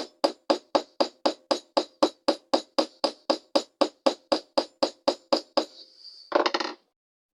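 Small hammer rapidly tapping the pins of a lockback folding knife against a sledgehammer head used as an anvil, about four even ringing taps a second, peening the pins tight to remove blade play. The tapping stops about five and a half seconds in, and a brief, louder rattle follows.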